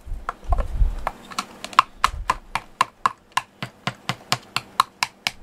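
Cat medicine being crushed to powder: a quick, even series of sharp tapping clicks, about four a second, starting about half a second in.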